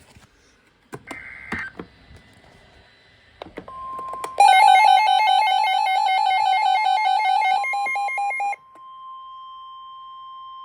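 Emergency weather-alert tones. A steady single tone near 1 kHz, the weather radio's warning alarm tone, starts about three and a half seconds in and holds to the end. About a second after it starts, a loud pulsed electronic beeping alarm joins it for about four seconds, then stops abruptly, leaving the steady tone alone.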